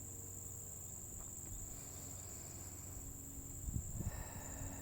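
Crickets chirring steadily in a continuous high-pitched drone, with a few low bumps near the end.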